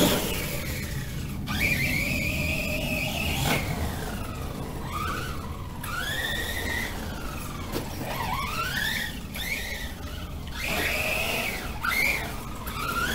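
Remo Hobby Dinosaurs Master 5 RC monster truck's brushless motor and drivetrain on a 3S battery, whining up and down in pitch with repeated bursts of throttle, about half a dozen rising whines.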